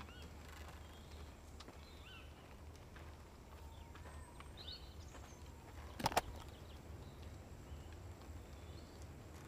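Quiet woodland ambience with a low steady rumble and scattered bird chirps. About six seconds in, two sharp clicks in quick succession: the latches of a carrying case snapping open.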